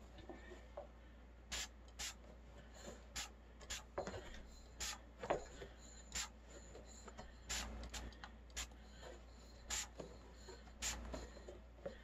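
Faint short squirts from a hand spray bottle of soapy water, a dozen or so at uneven intervals, wetting the bead of a tubeless mountain-bike tyre to help it seat.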